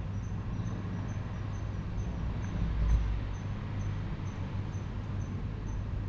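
A single dull bang about three seconds in, the loudest moment, typical of the neighbour's repeated banging. It sits over a steady low hum and faint high chirps that repeat about twice a second.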